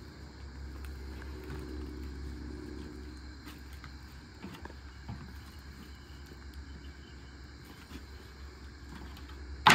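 Light knocks and scrapes of wooden crate boards being handled against a large circular sawmill blade over a steady low hum. Near the end comes one sharp, loud knock of a board against the blade.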